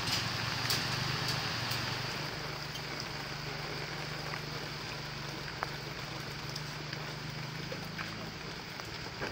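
A machine runs with a steady low hum under a constant hiss. Scattered light knocks and clatters come from debris being handled in the rubble of a collapsed building.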